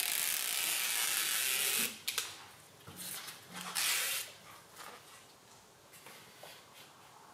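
Red liner being peeled off the 3M double-sided adhesive tape on a car window wind deflector, a loud crackly hiss for about the first two seconds. Fainter rustles follow, with a shorter burst of the same noise at about four seconds, as the plastic deflector is handled and fitted.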